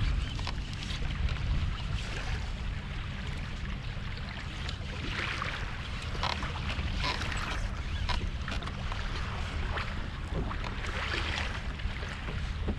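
Wind buffeting the microphone with a steady low rumble, over choppy water lapping and splashing against a kayak's hull, with a few short splashes standing out.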